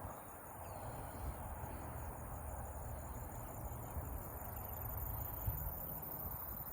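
Steady outdoor ambience: a continuous high chorus of insects such as crickets, over a low steady rumble.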